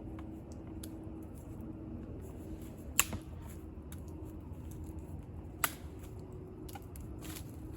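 Campfire crackling: scattered small ticks with two sharp pops about two and a half seconds apart, over a steady low rush.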